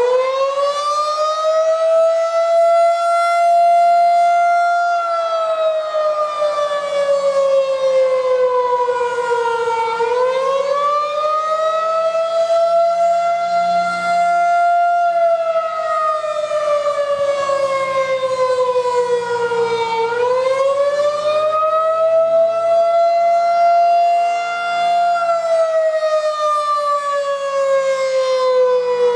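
Federal Signal 2001 outdoor warning siren sounding a wail test. Its tone climbs over two to three seconds, holds briefly, then slides down over about five seconds, and the cycle repeats every ten seconds or so.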